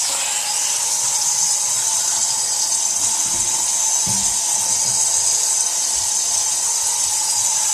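Kitchen sink faucet running steadily into the sink and down the drain, to test the drain for leaks. It is a continuous, even hiss of water with a faint steady whistle, and a few soft knocks about three to four seconds in.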